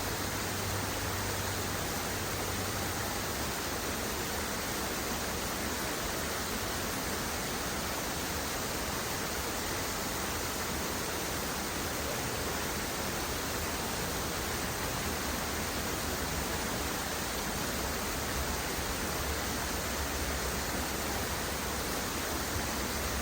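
Steady rushing of a waterfall: an even, unbroken wash of water noise.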